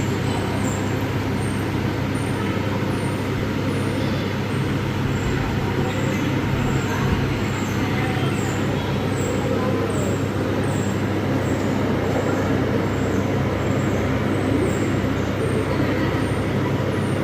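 Steady rumbling background noise with people's voices in it. A faint, short high chirp repeats about twice a second.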